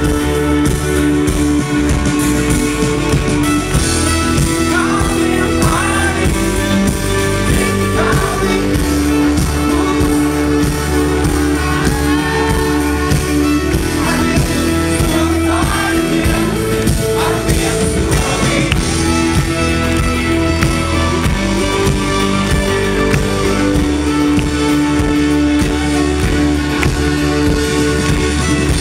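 Live band playing a song, with singing over guitar and keyboard.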